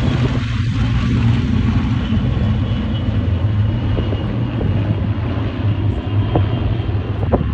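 Propeller-driven WWII warbird's piston engine droning steadily during a flypast, slowly fading as it passes.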